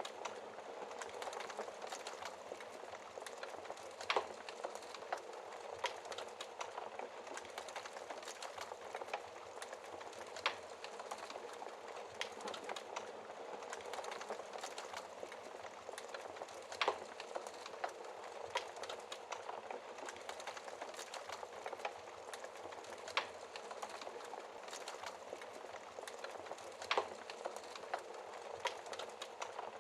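Wood fire in a fireplace crackling: a steady run of small crackles with a sharper, louder pop every few seconds.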